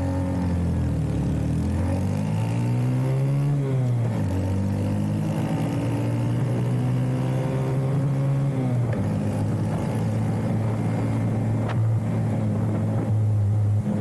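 Honda Monkey 125's single-cylinder four-stroke engine with a free-flow aftermarket exhaust, pulling under throttle while riding. The revs climb, fall back sharply twice (about four and nine seconds in), then hold steady. The rider feels the engine stop climbing freely once it passes about 7000 rpm.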